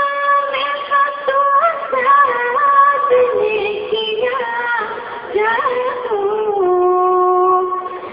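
Women singing a tarana, an Urdu devotional song, in long held notes that glide from one pitch to the next; near the end the melody steps down onto a lower note held for about a second and a half.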